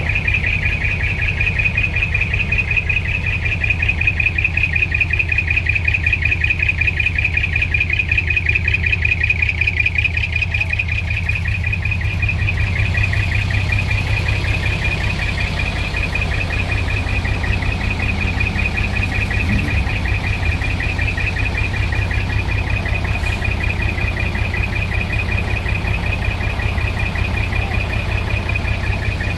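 A large truck engine idling close by, a steady low rapid pulsing. A steady high-pitched buzz runs over it throughout.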